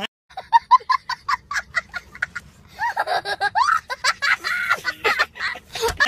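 High-pitched laughter in quick short bursts, about five a second, followed by longer drawn-out vocal sounds that rise and fall in pitch.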